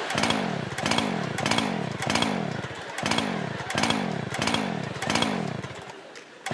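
Two-stroke chainsaw engine being revved in short repeated blips, about one every 0.7 s. Each rev dies away in pitch before the next, to show the saw is real and running.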